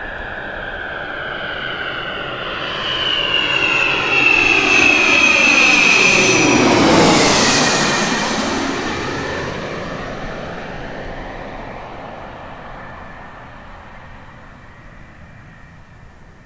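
Small twin-engine business jet on final approach passing low overhead. The high turbofan whine grows louder, peaks about seven seconds in as the jet goes over, then drops in pitch and fades away.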